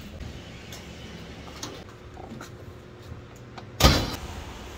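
A building's street door bangs once, loudly, about four seconds in, over a steady low rumble of street traffic.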